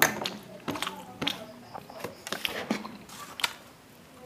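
Eating by hand from a steel plate: a string of sharp clicks and scrapes of fingers on the metal, with chewing. The loudest click comes right at the start.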